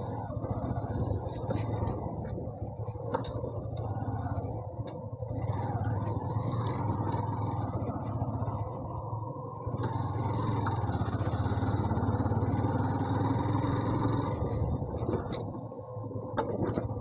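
Yamaha FZ V2 motorcycle's single-cylinder engine running steadily under load, louder from about ten to fifteen seconds in, with scattered sharp clicks and knocks.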